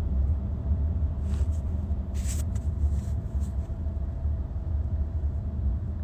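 Steady low road rumble of a moving car, heard from inside the cabin through a phone's microphone. A couple of brief hissy noises come about one and two seconds in.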